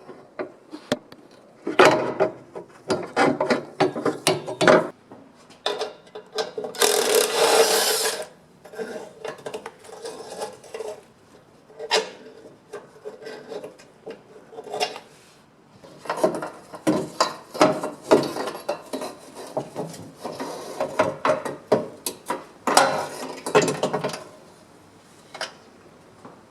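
Hand-tool work: irregular scraping, rasping and clicking strokes, ratchet-like in places, with a longer continuous rasp about seven seconds in.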